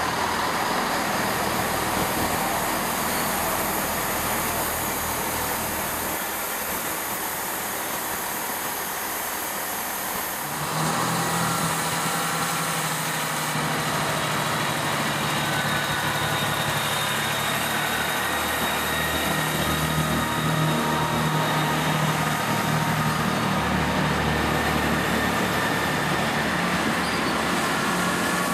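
Chiltern Railways diesel multiple unit running at the platform, its underfloor diesel engines giving a steady low hum. The hum sets in clearly about ten seconds in, over a general wash of train and station noise.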